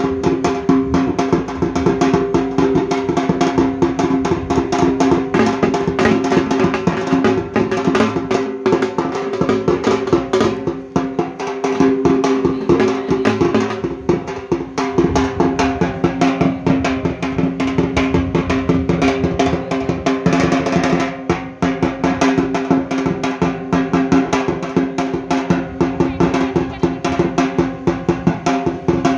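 A dhak, the Bengali barrel drum, beaten with two thin sticks in a fast, continuous run of strokes, the drumhead ringing under the beats.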